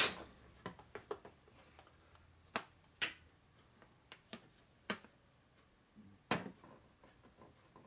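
Light, irregular clicks and taps of small plastic Loctite bottles being picked up, handled and set down, about eight or nine in all.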